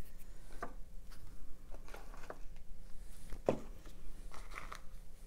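Scattered light taps, clicks and rustles of craft supplies being picked up and set down on a table, at irregular moments, the loudest knock about three and a half seconds in.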